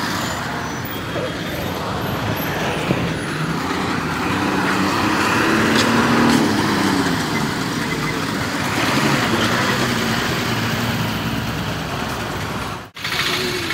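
Road traffic noise in a jammed road: vehicle engines running, with a heavier, truck-like engine loudest about halfway through. The sound cuts out for an instant near the end.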